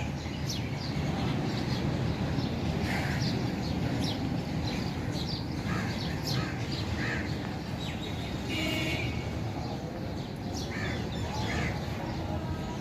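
Birds chirping and calling here and there over a steady low background noise outdoors.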